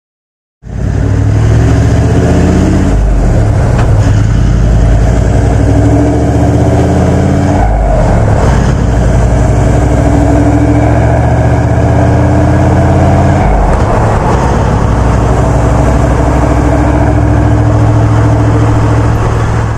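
Toyota Land Cruiser 79 Series 4.5-litre turbo-diesel V8 pulling away and driving on, heard through its twin 3-inch stainless steel mandrel-bent exhaust. The engine note is loud, starts suddenly about half a second in, and climbs and drops back several times as the gears change.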